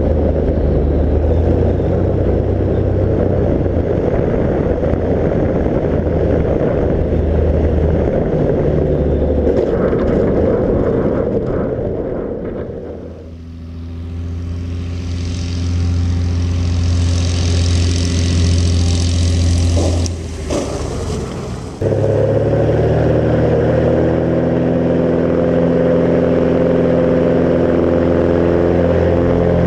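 Light aircraft piston engine and propeller of a Barrows Bearhawk. First it is heard onboard as a loud, dense rumble mixed with wind noise during low flight. About halfway through it becomes a steady pitched drone with hiss above it as the plane is heard from the ground flying toward the listener. Near the end it is back onboard, a steady engine hum on the gravel bar.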